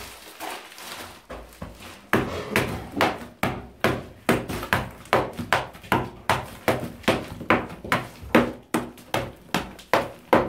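Hand hammer chipping old plaster off a masonry wall, in a steady run of sharp blows, about two and a half a second, starting about two seconds in.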